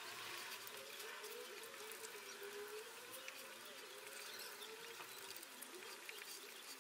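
Quiet, faint sounds of a man chewing a jam doughnut, scattered soft clicks over a hiss, with a faint wavering tone underneath.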